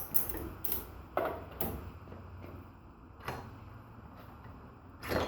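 About six short, sharp knocks and clicks at irregular intervals, from a wrench being worked on a motorcycle's front axle bolt.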